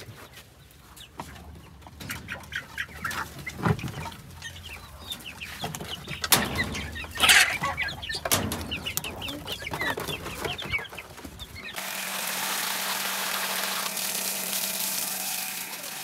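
Domestic hens clucking and calling, with a few sharp knocks and rattles from a wire-mesh cage door being opened. About twelve seconds in, this gives way to a steady hiss.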